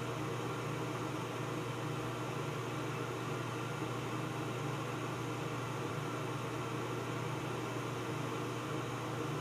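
Steady low drone with an even hiss above it, like a running ventilation fan; it does not change.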